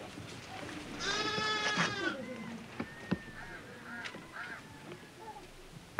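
A goat bleating once, about a second in, a quavering call lasting about a second; a few short, faint calls follow.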